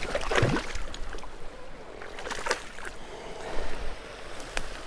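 Stream water running steadily, with a brief swoosh about half a second in and a few light clicks later on.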